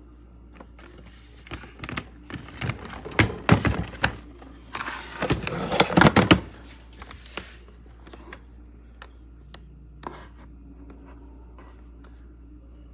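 Handling clatter: a run of knocks and clicks from things being handled close to the microphone, busiest from about one and a half to seven and a half seconds in, then a few scattered clicks over a low steady hum.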